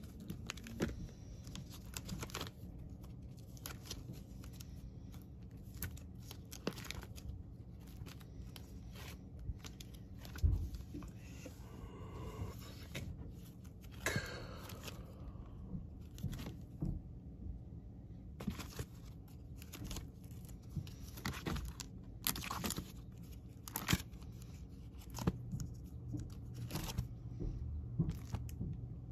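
Vinyl LP jackets in plastic outer sleeves being flipped through one by one in a record bin. Irregular crinkling of plastic and slaps of cardboard, with a duller knock about ten seconds in and a low steady hum underneath.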